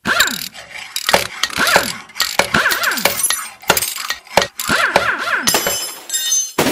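Intro sound effects: a quick series of sharp hits, each followed by a falling tone, with a bright crackly crash about six seconds in.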